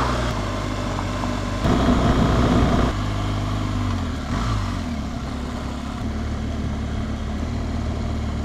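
BMW R1200GS Rallye's boxer-twin engine running steadily on a shale track, under a steady rush of wind and road noise; the engine note swells briefly about two seconds in.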